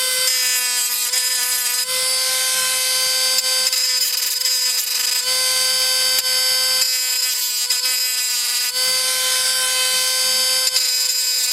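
High-speed rotary grinder running at a steady high-pitched whine while grinding off small die-cast Zamac tabs on a toy truck's chassis.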